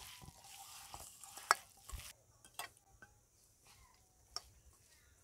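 Hand mixing wet marinated chicken pieces with flour in a stainless steel bowl: soft squelching and rustling for about two seconds, then a few scattered light clicks against the bowl.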